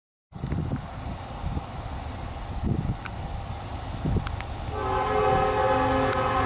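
Approaching CSX freight train led by a CM44AC locomotive: low rumble, then about two-thirds of the way in the locomotive's air horn starts blowing a chord of several steady tones and holds.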